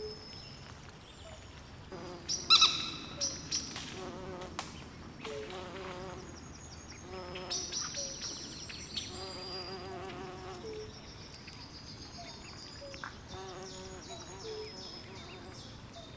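Swamp chorus of frogs and insects: repeated high chirping trills over lower warbling croaks that recur every second or two, with a cluster of louder sharp calls about two and a half seconds in.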